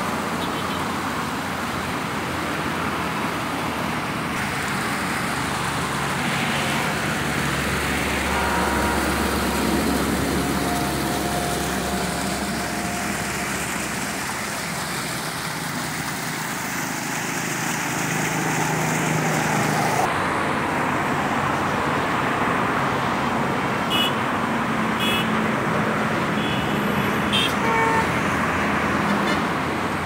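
Three 3/4-inch gunmetal geyser jet fountain nozzles running, their foaming water columns falling back into the pool with a steady rushing splash.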